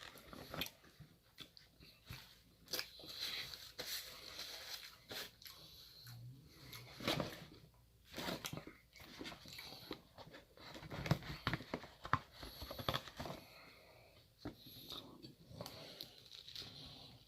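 A person eating close to the microphone: irregular biting and chewing with wet mouth clicks.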